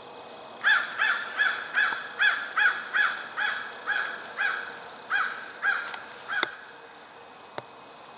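A bird calling in a fast series of about fourteen short, crow-like calls that stop after about six seconds, followed by a single sharp click near the end.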